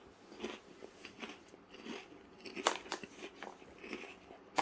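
A person chewing potato crisps: a run of short, irregular crunches, the loudest about two and a half seconds in.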